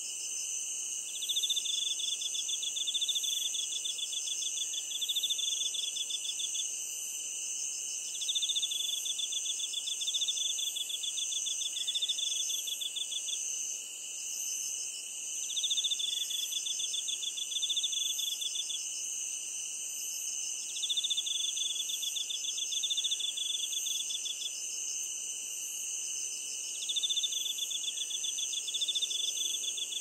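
Night chorus of several singing insects: a steady, unbroken high trill runs under a louder pulsed trill that swells in phrases of a second or two, returning every few seconds.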